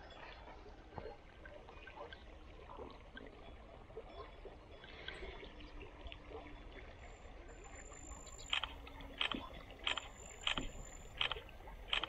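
Small river running faintly in the background. In the last few seconds a regular series of sharp clicks comes about every two-thirds of a second, and these are the loudest sounds.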